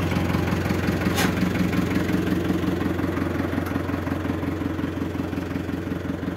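Tractor engine running steadily at idle, with a brief click about a second in.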